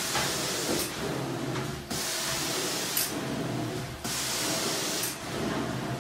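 Carpet-cleaning extraction wand spraying solution into a carpet and sucking it back up through the vacuum hose: a steady hiss that dips briefly about every two seconds as each stroke ends, with a short sharper hiss partway through each stroke.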